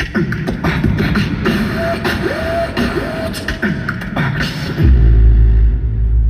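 Beatboxing through an arena PA: quick vocal drum clicks and snare-like hits with short rising vocal slides, then a deep, loud vocal bass held from about five seconds in.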